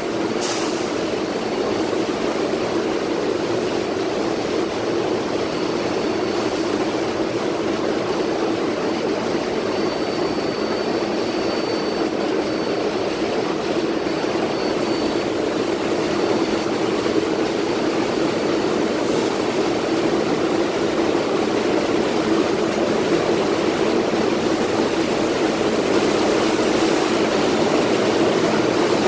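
Steady roar of R188 subway cars moving along the platform of an underground station, growing slightly louder toward the end.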